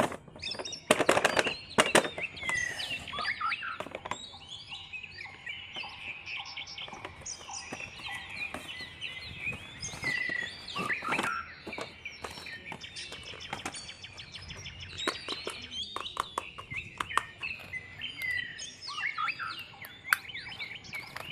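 Many small birds chirping and twittering throughout, with a scatter of sharp clicks and knocks; the loudest knocks come about one and two seconds in.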